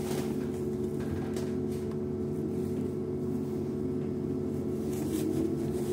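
Cabin sound of a LiAZ-6274 battery-electric bus moving slowly: a steady electric hum from its drive, with a tone that rises slightly near the end.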